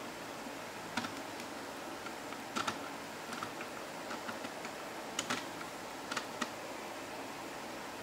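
Small sharp clicks of hard plastic LEGO parts as the gears and bricks of a puzzle box are turned and pressed by hand, several coming in quick pairs and stopping about two-thirds of the way through, over a steady hiss.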